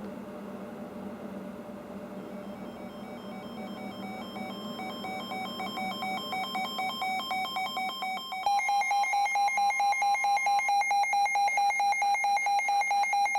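Weather-alert radio alarm beeping for a received Winter Storm Warning. Pulsed electronic beeps rise out of a steady hiss and grow louder, then about two-thirds of the way through jump to a loud, rapidly pulsing alarm tone.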